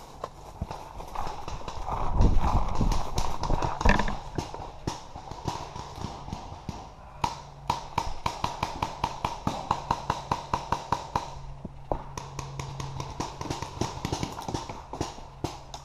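Paintball markers firing: a rapid run of sharp pops at about five a second through the middle, then more scattered shots near the end. Before that comes a loud stretch of rustling and knocking as the player moves to cover.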